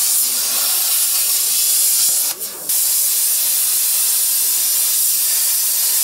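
Plasma cutting torch hissing steadily as it cuts through a steel plate. It stops briefly about two and a half seconds in, then starts again.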